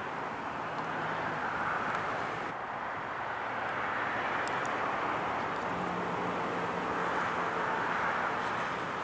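Jet engines of a Southwest Boeing 737-700, twin CFM56-7B turbofans, running on the airfield: a steady rushing hum with a faint low drone underneath.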